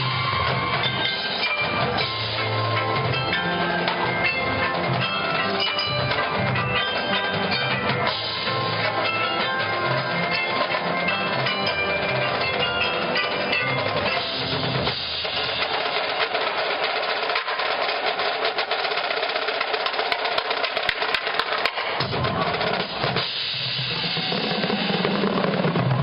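College marching band playing a field show, with brass and winds over a drumline of snare and bass drums. Around the middle the held notes thin out and the percussion comes to the front with sharp hits, and the fuller band sound returns near the end.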